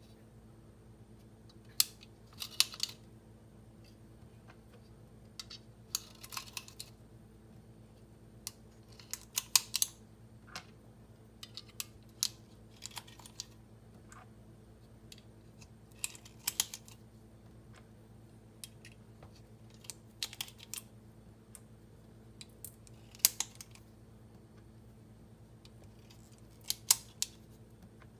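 9mm cartridges being pressed one at a time into a Taurus G2C pistol magazine, each round seating with a sharp metallic click, in small clusters every couple of seconds.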